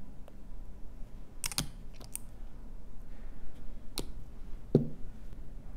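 A few small clicks and taps from nail-care tools and a bottle being handled and set down on a table, with a duller thump near the end.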